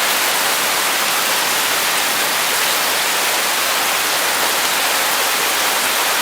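Heavy rain falling, a steady dense hiss with no single drops or thunder standing out.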